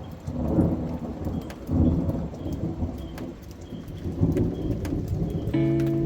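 Rain with repeated low rumbles of thunder. A plucked guitar note comes in near the end.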